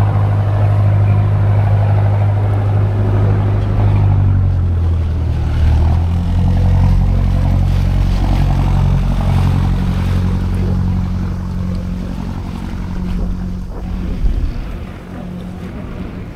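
Tour boat's engine running with a steady low hum. Its note shifts about four to six seconds in, and it gets quieter over the last few seconds, with one brief knock near the end.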